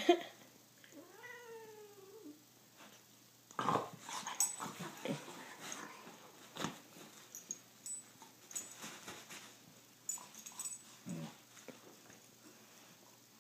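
A cat gives one drawn-out meow about a second in, rising then falling in pitch. Then comes the rustle and scuffle of the cat and a golden retriever play-wrestling on bedding, with scattered soft thumps.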